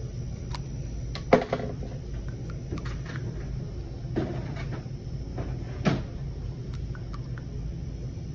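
A few sharp clicks and knocks from handling during a blood draw, the loudest about a second in and two more at about four and six seconds, over a steady low hum.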